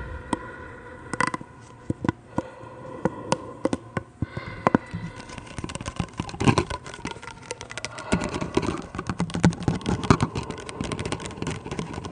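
Breath blown through a corrugated plastic pop tube held to the mouth and bent in the hands. Scattered sharp clicks come first; from about halfway in they give way to a dense crackling rattle with a low buzz.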